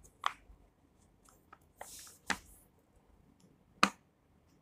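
Silicone pop-it fidget toys, one carrot-shaped and one pineapple-shaped, having their bubbles pressed in one at a time: three distinct pops, the last the loudest, with a few faint ticks between. One toy's pop sounds sharper, the other's somewhat lower.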